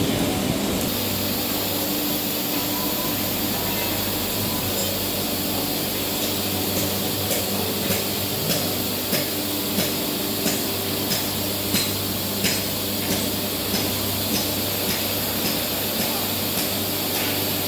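A machine runs with a steady hum. From about six seconds in, sharp taps or clicks join it, about three every two seconds.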